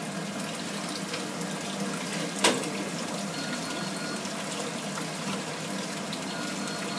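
Water running and boiling in a large noodle-boiling pot under a noodle press: a steady rushing with a low steady hum underneath. One sharp knock about two and a half seconds in.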